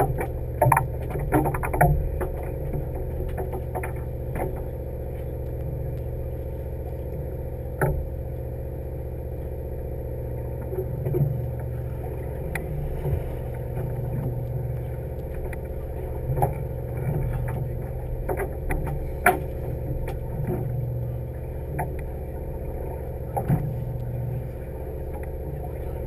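Steady hum of a fishing boat's engine running, with occasional sharp knocks and clicks from gear on deck.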